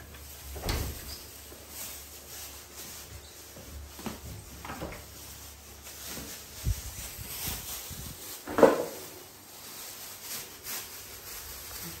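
Scattered knocks and bumps, the loudest about two-thirds of the way through.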